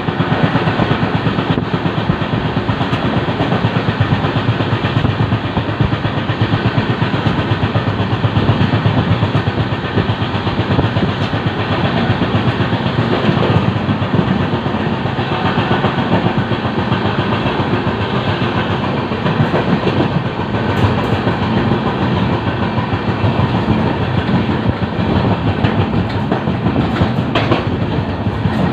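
LHB passenger coach running along the rails: a continuous rumble of wheels on track with a clickety-clack.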